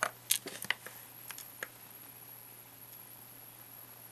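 A few light clicks and taps of watchmaker's tweezers and small watch parts on the bench, several in the first second and a half, then only a faint steady hum.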